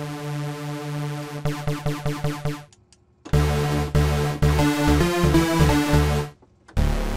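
Spectrasonics Omnisphere synth patch of detuned saw waves thickened with unison, played on a keyboard: one held note, then after a short gap a run of short, stabby notes at changing pitches with a deep bass.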